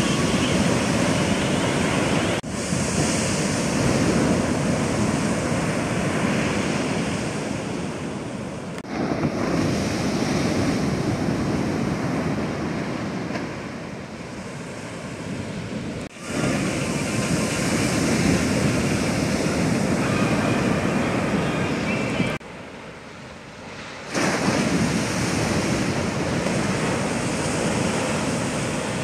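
Heavy shorebreak surf: big waves pitching and crashing, with a deep, steady rushing of whitewater. The level jumps abruptly several times, dropping to a quieter stretch for a couple of seconds about two-thirds of the way through.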